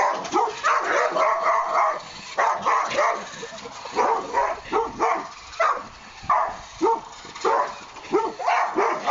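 Dog barking over and over in short, sharp barks, about one or two a second, with brief pauses around two seconds in and again around six seconds in.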